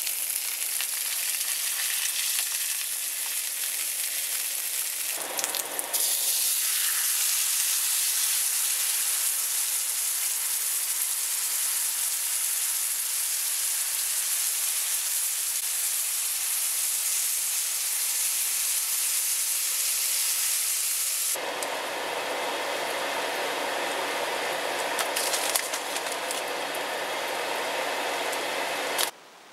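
Eggplant halves sizzling in oil in a hot stainless steel frying pan, a steady hiss that grows louder a few seconds in. About two-thirds through it turns to a fuller, lower bubbling as the sweet soy sauce reduces around the eggplant, then it cuts off just before the end.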